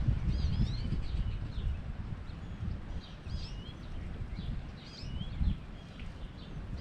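Small birds chirping and twittering, many short notes sliding up and down in pitch, over a low rumbling noise with a brief low thump about five and a half seconds in.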